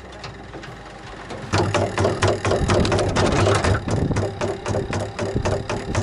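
Hand-cranked honey extractor spinning up about a second and a half in: a fast, regular clatter over a low hum as the frames whirl in the drum and honey is flung out of the uncapped combs by centrifugal force.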